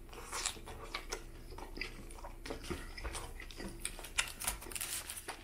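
A person chewing a mouthful of sub sandwich: a run of small, irregular mouth clicks.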